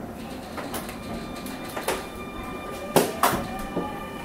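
Sliding doors of a Keio 9000 series commuter train shutting, heard from inside the car: a few sharp knocks and thumps, the loudest about three seconds in, over the train's steady hum and a faint high tone.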